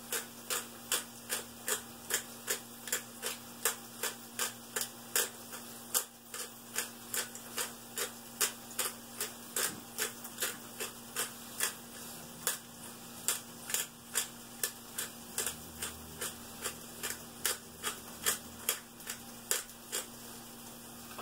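Hand-turned kitchen grinder clicking steadily as it is cranked, about two to three clicks a second.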